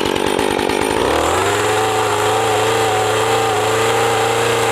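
Two-stroke chainsaw running: a low, uneven pulsing at first, then throttled up about a second in to a steady high-pitched rev that is held.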